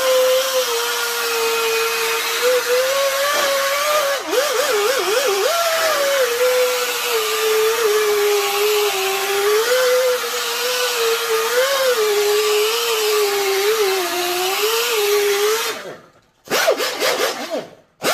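Rotary buffer with a foam pad spinning against a car's clear coat, polishing it with a fine-cut cleaner compound; its motor whine wavers up and down in pitch as the pad is pressed and moved over the paint. It stops shortly before the end and is briefly run again.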